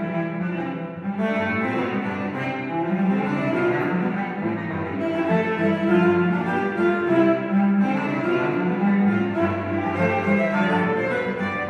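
Cello quartet: four cellos bowed together, playing several lines at once in sustained, continuous notes.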